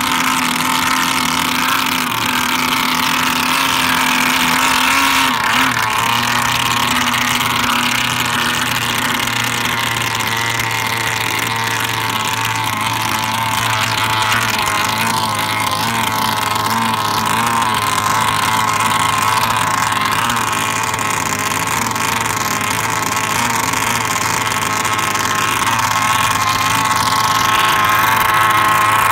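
Gas RC boat's two-stroke engine idling steadily at close range.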